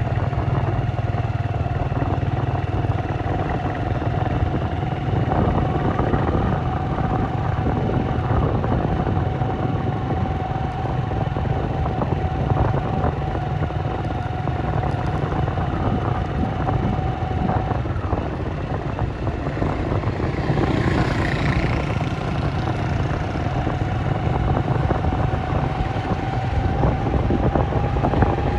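Motor-vehicle traffic noise: a continuous low engine and road rumble with a steady whine over it. A rushing swell rises and fades about twenty seconds in, like a vehicle passing close by.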